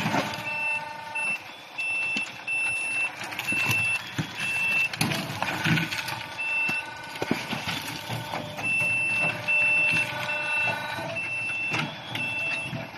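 Electric skid steer loader working, its reversing alarm beeping about twice a second in runs over the low running sound of the machine, with occasional knocks. The engine noise of a diesel loader is absent: the machine runs quietly enough for the alarm to stand out.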